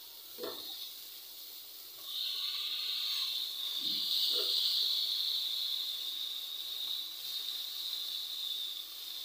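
Chana dal sizzling in hot oil and spices in a non-stick frying pan as it is stirred and sautéed with a silicone spatula. The sizzle swells about two seconds in, with a couple of soft knocks of the spatula against the pan.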